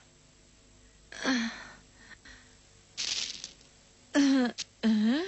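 A woman's breathy, wordless vocal sounds: a sharp intake of breath about three seconds in, then two short exclamations with rising pitch near the end.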